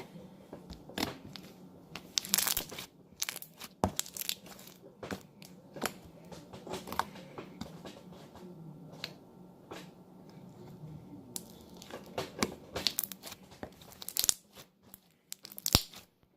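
Thick metallic slime being worked by hand, squeezed, stretched and poked, giving irregular sticky clicks and crackling pops.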